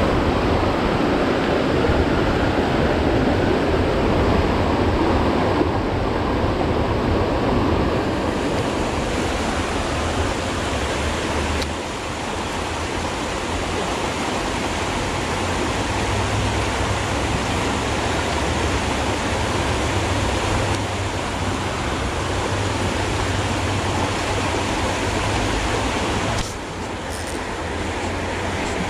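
Steady rushing of river water, with a low rumble underneath.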